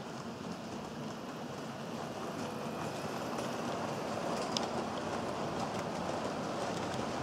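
HO-scale model train running along the track: a steady rolling rush that slowly grows louder as it nears, with a few light clicks.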